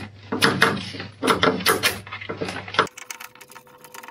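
Thin plastic sheeting crinkling and rustling as it is cut with scissors, in several loud crackly strokes. About three seconds in it drops off abruptly to a much quieter background with a faint steady hum.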